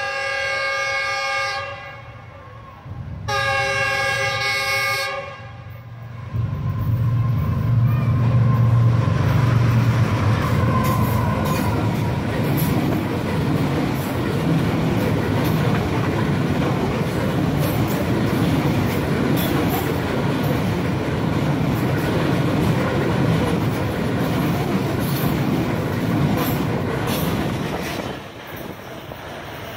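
GE Evolution Series ES43ACi diesel locomotive sounding two long blasts on its multi-note horn as it approaches, then passing at high speed with a deep engine drone. The container wagons follow in a steady rush with rapid clickety-clack of wheels over the rail joints, dropping off near the end.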